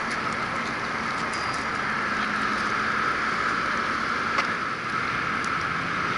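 Steady rush of river water churning through rapids below a dam.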